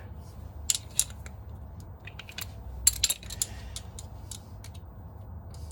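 Metal hand tools clicking and clinking in irregular single knocks and short clusters while bolts on the motorcycle's front end are slackened.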